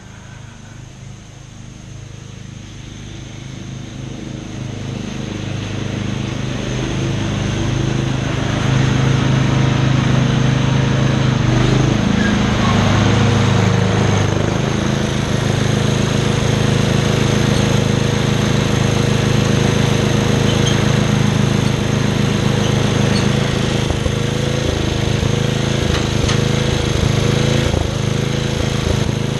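Craftsman lawn mower engine running. It grows louder over the first several seconds, then runs steadily.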